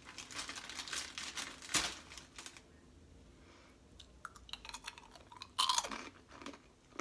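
Close-up crunchy chewing of a hard, caramel-like snack mix of Chex Mix, popcorn and pretzels, in runs of sharp crunches with a quieter pause in the middle.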